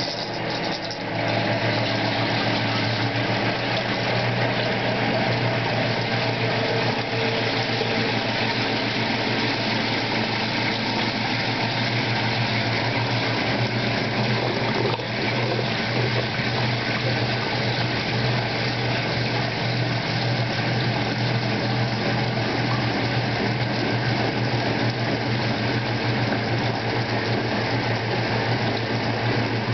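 1958 General Electric Filter-Flo top-loading washer in its spin-and-drain stage: the motor runs with a steady low hum while the pump rushes the wash water out of the spinning tub. There is a brief dip in loudness about a second in, then the sound holds steady.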